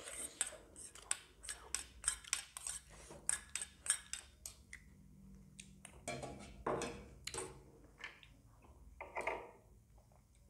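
Metal spoon scraping and clinking inside a small stainless-steel bowl, many quick sharp taps in the first half, followed by a few softer sounds of eating from the spoon.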